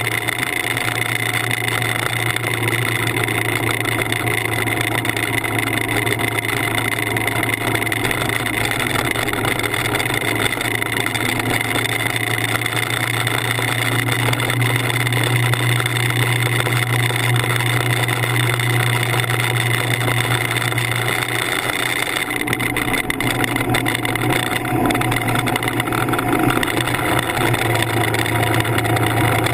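Motorcycle engine running at a steady cruise, a low even drone.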